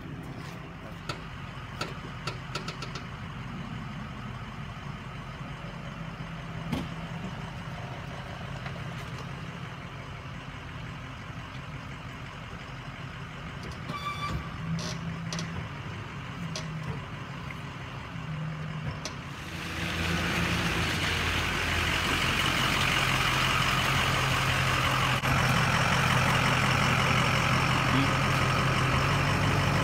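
Tow truck's engine running steadily. About two-thirds of the way through it gets clearly louder and a harsh noise joins in as the winch pulls the stuck Dodge Ram pickup out of the mud.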